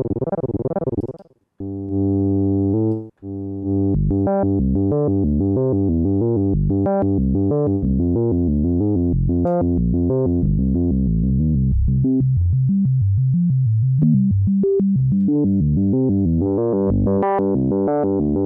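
Arturia MicroFreak synthesizer played through the Eventide H90's Harpeggiator pitch-shifting algorithm. A short warbling note and a held chord come first; from about three and a half seconds in, the sound turns into a fast stepped sequence of pitch-shifted notes.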